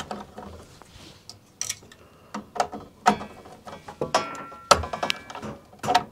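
Screwdriver turning terminal screws on stranded wires in a small metal breaker box, with irregular clicks and metal scrapes as the wires are pushed around and the screws retightened.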